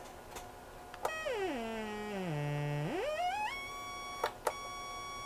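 Moog Werkstatt-01 analog synthesizer's oscillator sounding a buzzy sawtooth tone that starts about a second in, glides down in steps to a low note, sweeps back up, and then holds a steady higher note. A couple of short clicks come about four seconds in.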